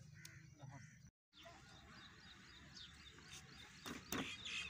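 Faint rural outdoor ambience with birds chirping and faint voices. The sound drops out briefly about a second in, and a few sharp knocks come near the end.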